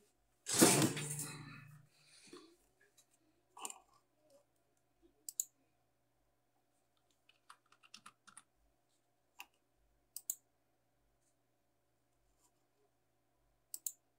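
A sheet of printed paper handled by hand on a tabletop: a loud rustle about half a second in, then scattered light clicks and taps, some in quick pairs.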